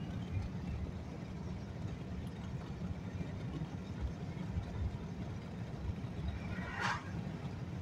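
Steady low road and engine rumble heard from inside a moving vehicle's cab on a paved road. Near the end, a brief whoosh as an oncoming car passes.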